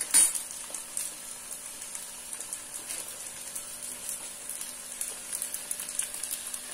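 Jalebi frying in desi ghee in a wide pan: a steady sizzle with fine crackling throughout. A sudden loud noise stands out just after the start.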